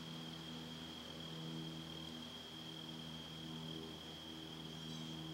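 Steady background ambience with no distinct events: a constant high-pitched whine over a low steady hum and faint hiss.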